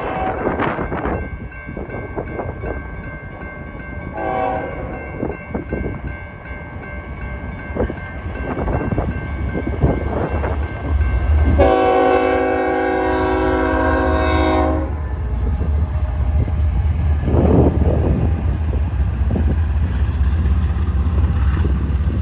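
Freight train diesel locomotive horn: a short blast about four seconds in, then a long blast of about three seconds near the middle. The crossing signal bell rings early on, and the locomotives' engines and the passing intermodal cars grow into a heavy low rumble from the long blast onward.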